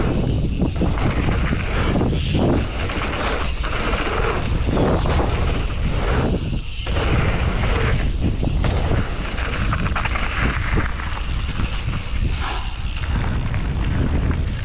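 Wind buffeting the microphone during a mountain-bike ride, a loud, steady low rumble mixed with the rush and rattle of the ride, briefly easing a few times.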